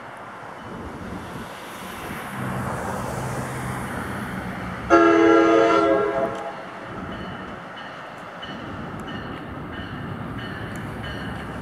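NJ Transit commuter train approaching, led by its cab car; its horn sounds one blast of just over a second, about five seconds in, over the rumble of the oncoming train. Light clicks from the wheels on the rails near the end.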